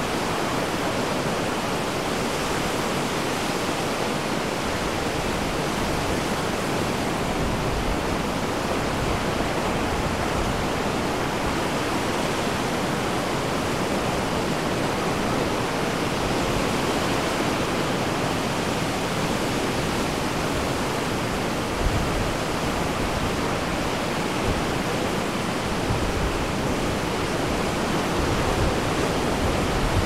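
Ocean surf breaking on a beach: a steady, even rush of noise.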